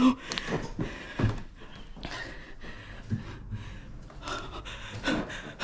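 A person breathing hard close to the microphone, with a few soft knocks of footsteps on wooden stairs.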